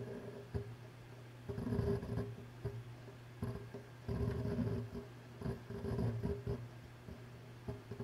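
Synology DS418j NAS running: a steady hum from its four spinning hard drives and cooling fan, with several irregular bursts of rattling clicks from the drives' heads seeking.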